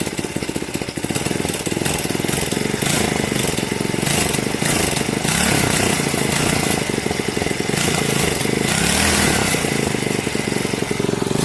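A pocket bike's small two-stroke engine running, its revs rising and falling somewhat. The owner says the carburetor needs cleaning.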